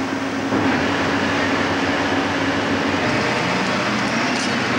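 Steady rushing hiss of a hose spraying firefighting foam, over the steady low hum of the machinery that drives it.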